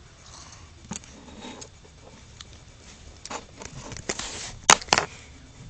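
Handling noise: rustling and scattered light clicks as the camera and dolls are moved about, ending in two sharp clicks in quick succession.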